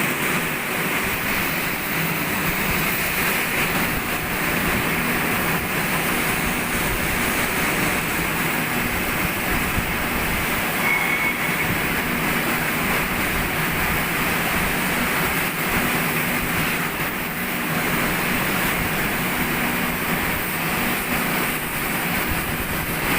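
Steady machinery noise, an even hiss and drone with a low hum running through it, and a brief high tone about eleven seconds in.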